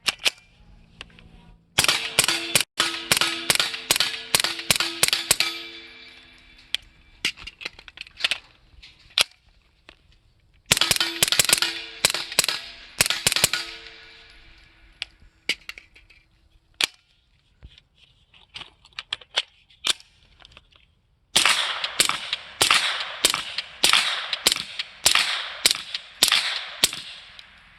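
B&T GHM9 Gen 2 9mm carbine with a Glock lower, fired rapidly in semi-auto with subsonic ammunition through a SilencerCo Octane 9 suppressor. There are three quick strings of about a dozen shots each and a few single shots in the pauses between. The gun feeds and cycles without a stoppage.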